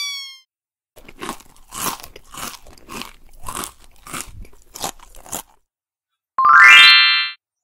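Cartoon chewing sound effect: about eight crunchy bites, roughly two a second, as the hippo eats the food it was offered. Near the end a short, louder rising tone follows.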